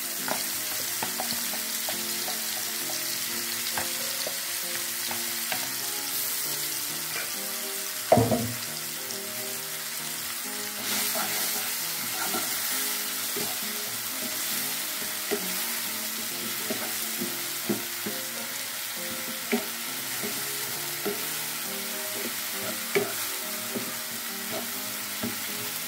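Ground chili, shallot and garlic paste sizzling in hot oil in a wok, stirred and scraped with a wooden spatula, with scattered light taps on the pan and one louder knock about eight seconds in. The paste is being sautéed until it is cooked and fragrant.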